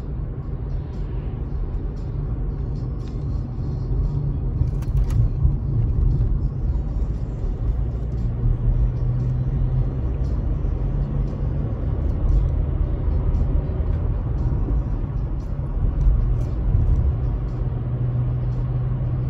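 Car driving at road speed, heard from inside the cabin: a steady low rumble of engine and tyres, with faint scattered ticks.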